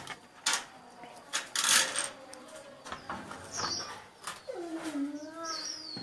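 A few sharp knocks and a brief clatter from objects being handled, the loudest about two seconds in. Short high bird chirps come twice in the second half, with a low, wavering bird call around five seconds in.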